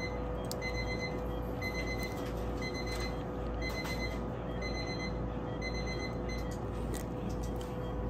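Electronic beep from a surgical patient monitor, a short high tone repeating about once a second, over a steady machine hum with a few faint instrument clicks.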